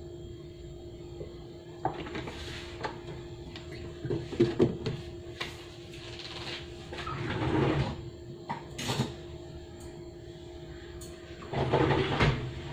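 Kitchen handling noises: irregular knocks and clatters, like cupboards and utensils being moved, over a steady low hum. The clatter is loudest a few seconds in and again near the end.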